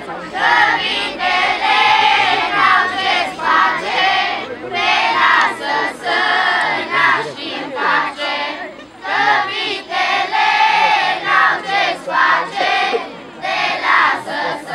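A choir of children singing a Romanian Christmas carol (colindă) together, in phrases broken by short pauses about every four to five seconds.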